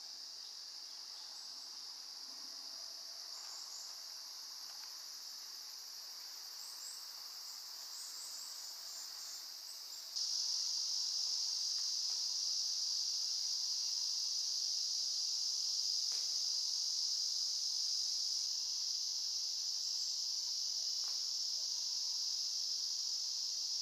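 Steady high-pitched chorus of chirring insects, which turns suddenly louder about ten seconds in.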